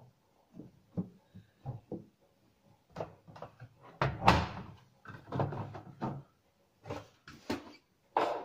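Laundry being handled and pushed into the drum of a Gorenje front-loading washing machine, with short knocks and rustles. The machine's door is shut with a loud knock a little after four seconds in, and the plastic detergent drawer is pulled open with a knock near the end.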